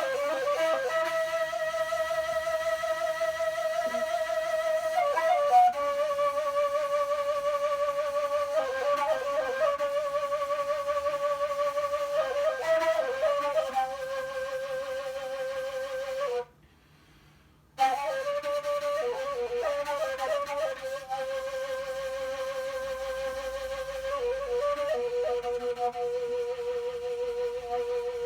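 Turkish kaval, the end-blown shepherd's flute, playing a slow improvised melody. Long held notes with vibrato are linked by quick ornamented runs, with a short pause a little past halfway.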